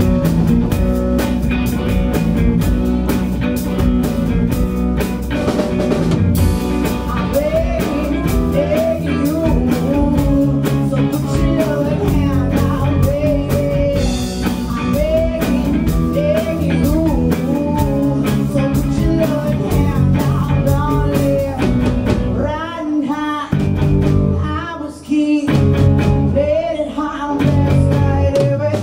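Live band playing with electric guitars and a drum kit, a woman singing lead into a microphone. The band stops briefly twice near the end.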